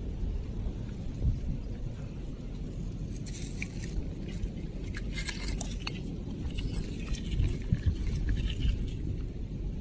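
Light clinks and crunches of broken shell and coral rubble being shifted by a gloved hand as it picks up a shell, scattered from about three seconds in, over a steady low rumble.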